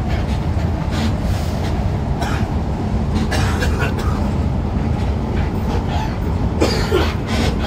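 Steady low rumble of a moving intercity coach heard from inside the cabin at the front, with scattered rattles and clicks from the bus's interior. A brief louder sound comes near the end.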